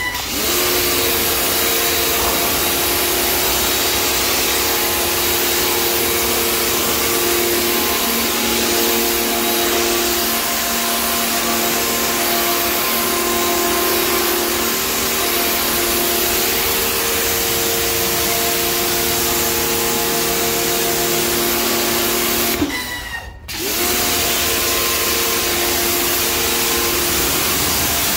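Pressure washer running, a steady motor-and-pump hum with the hiss of the water jet striking tiles. Near the end it cuts out for under a second, then starts up again with a brief rising whine.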